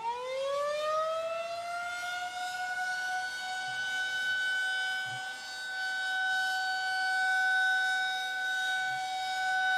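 Outdoor civil-defense warning siren winding up from a low pitch to a steady high wail and holding it, its loudness slowly swelling and fading.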